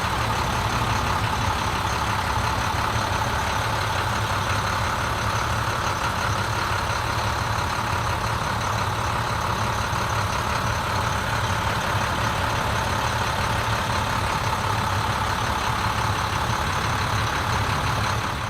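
Diesel engine of an International CXT pickup truck idling steadily, with an even low hum and no revving. It stops suddenly at the very end.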